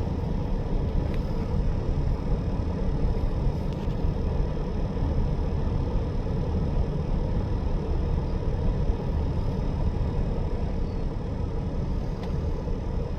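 Engine idling: a steady low rumble with faint steady tones above it.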